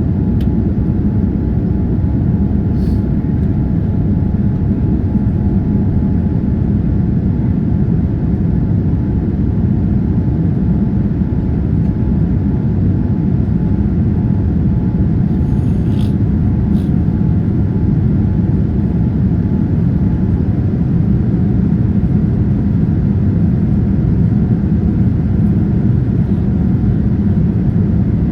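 Steady low rumble of a Boeing 787-9 Dreamliner's engines heard inside the passenger cabin, with a few faint clicks.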